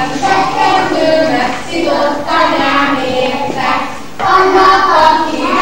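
A group of young children singing a song together, with a short break between phrases about four seconds in.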